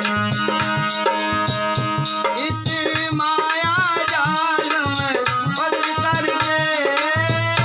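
Devotional bhajan music: tabla-style hand drumming and a rattle keep a steady beat under a melody line that bends and wavers.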